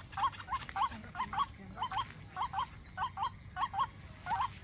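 White-breasted waterhen (dahuk) calling: short hooked notes repeated in quick pairs, about two pairs a second, in a steady run, with thin falling high notes over it.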